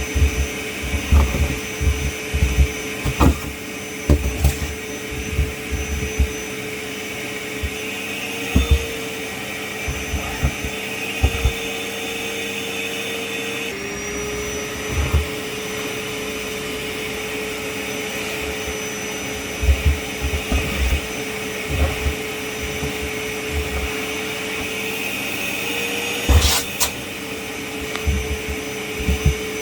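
Kärcher WD 6 P wet-and-dry vacuum cleaner running steadily with a high motor whine, its pitch dropping slightly about halfway through. Irregular low thumps and knocks come and go throughout, with one sharp clack near the end.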